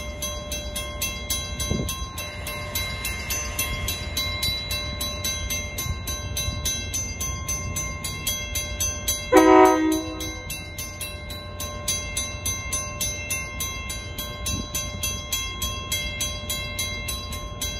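Steady low rumble of a Metra diesel commuter train standing at the station, broken about nine seconds in by one short, loud blast of a multi-tone train horn.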